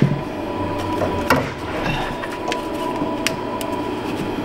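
A few sharp clicks and small knocks of hands handling a plastic wiring harness and connector in a car's engine bay, over a steady background hum.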